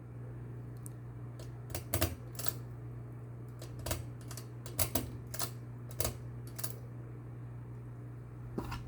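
Ceiling fan motor humming steadily, with a scatter of sharp, irregular clicks and ticks over it.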